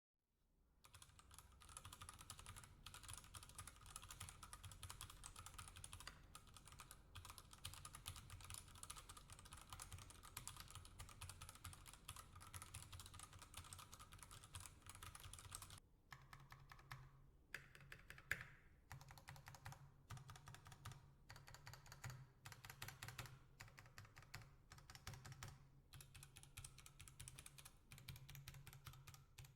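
Faint, fast typing on a custom retro typewriter-style mechanical keyboard (Typewriter Gen2): a dense, rapid run of key clicks. About halfway through, the keystrokes become more spaced out, with one louder clack shortly after.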